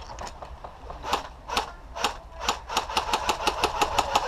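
Airsoft guns firing: a few scattered single shots, then a rapid, even string of about six or seven shots a second starting a little past halfway.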